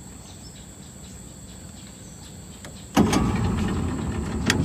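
Faint insect chirring over a quiet river bank, then about three seconds in a boat's motor suddenly starts running loudly.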